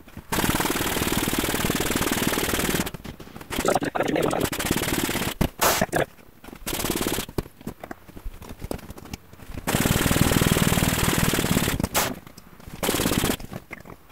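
Electric air pump blowing air down a hose into an inflatable dinghy's tube chamber, run in repeated bursts: a long one of about two and a half seconds at the start, several short ones, and another of about two seconds later on, with quieter gaps between.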